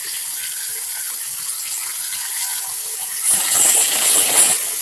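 Shallots frying in oil in a kadai, sizzling steadily while a spatula stirs and scrapes with small clicks; the sizzle grows louder for a moment about three seconds in.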